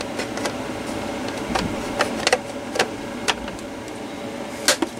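Campbell Hausfield cordless air compressor's small motor running with a steady hum, while its plastic cover panel is pressed into place with several sharp clicks and knocks.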